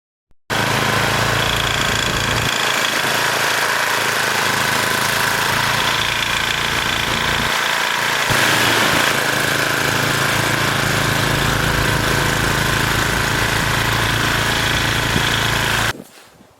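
Gas snowblower engine running steadily under a hiss of blowing snow, stopping abruptly near the end.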